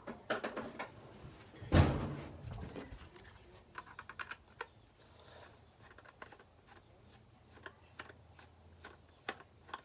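Small clicks and knocks of a screwdriver and a multimeter's plastic case being handled while the back screws are undone, with one louder thud about two seconds in.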